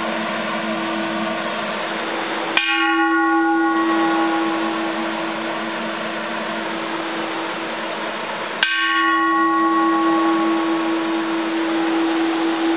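Flanged bronze Japanese Buddhist temple bell struck twice, about six seconds apart. Each strike rings out in several overtones that fade while a low hum carries on. Steady hiss of heavy rain on a tin roof underneath.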